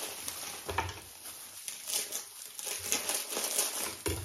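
Irregular rustling and crinkling of a disposable plastic glove and shredded vegetables as a hand tosses and mixes singju, a Manipuri salad, on a banana leaf.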